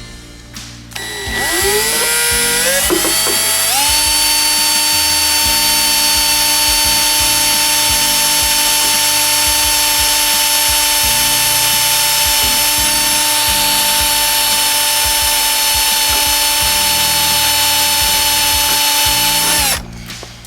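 Electric drill spinning up in steps as the trigger is squeezed, then running at a steady high speed for about sixteen seconds before winding down and stopping near the end.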